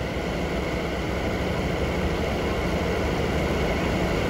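Steady low drone of a diesel railcar idling while it stands at the platform.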